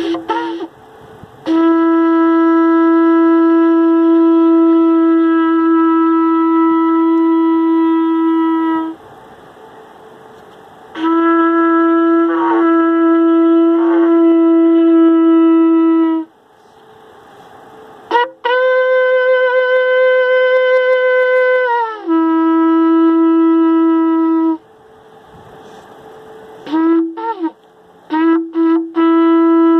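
A long spiral shofar blown in several long, steady blasts, mostly on one low note. One blast climbs to a higher note and then drops back, and a run of short, broken blasts comes near the end.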